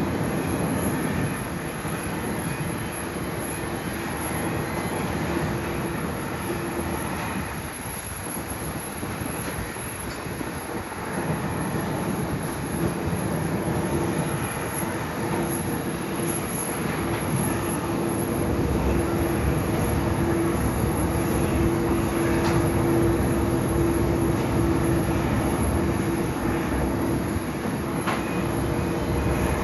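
Airbus A350-900's Rolls-Royce Trent XWB jet engines running steadily with a held whine, getting louder from about a third of the way in.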